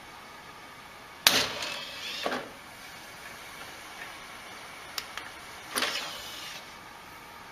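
A desktop computer's optical drive tray whirring and clunking as it moves open or shut, once about a second in and again near six seconds. Two small clicks of the drive's button come just before the second.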